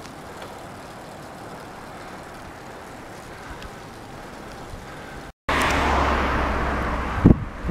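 Faint steady outdoor background noise. About five seconds in it cuts out briefly, then gives way to loud wind rush over the microphone of a bicycle descending at speed, with a couple of low buffeting thumps near the end.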